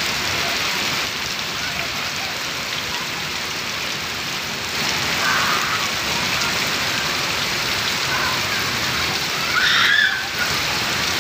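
Heavy rain pouring down steadily on wet ground, a loud, even hiss of water.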